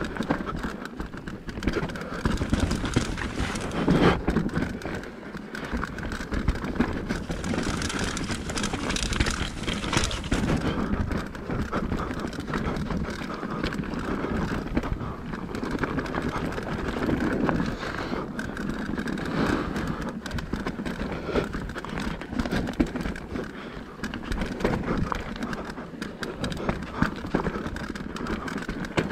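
Mountain bike descending a rough trail, with tyres on dirt and rock and the bike rattling and clattering over constant bumps. Steady wind noise on the action-camera microphone.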